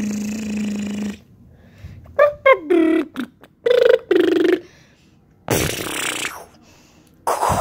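Mouth-made sound effects for a toy spaceship: a held humming drone that stops about a second in, then short pitched vocal blasts, some falling in pitch, and two hissing bursts in the second half.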